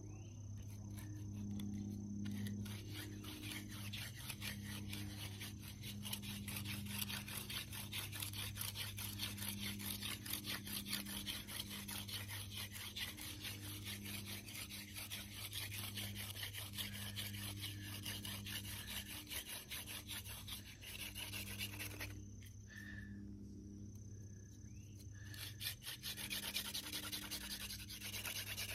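Friction-fire hand drill: a sunflower-stalk spindle is spun fast between the palms, drilling into a dry conch bracket fungus hearth (Fomitopsis ochracea). It makes a rapid, continuous rasping rub. The drilling stops for about three seconds near the end, then starts again.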